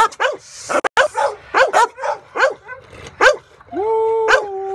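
A large blue bulldog barking in a rapid string of short barks, about three a second, ending in one long, held, high-pitched cry near the end.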